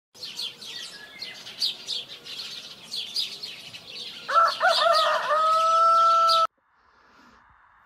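Small birds chirping quickly and repeatedly, then a rooster crows once about four seconds in, ending on a long held note that cuts off abruptly, leaving only a faint hiss.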